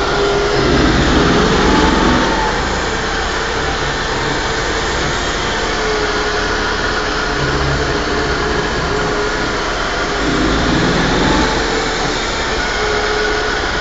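Portable flange facing machine running steadily on a large pipe flange: a continuous mechanical noise with a faint steady hum. It swells briefly twice, about a second in and again about ten seconds in.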